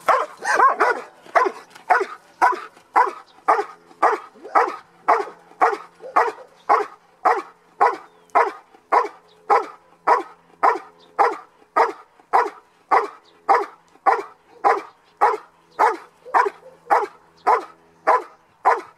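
Belgian Malinois barking steadily and rhythmically, about two barks a second, in a long unbroken series: the hold-and-bark on a helper standing in a blind, as in protection training.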